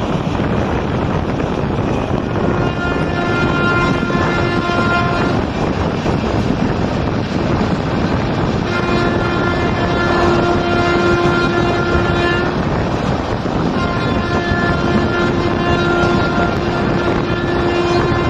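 Express train running at speed, heard through an open coach window: a steady rush of wheels on the rails and wind. The locomotive's horn sounds three long blasts, the middle one the longest.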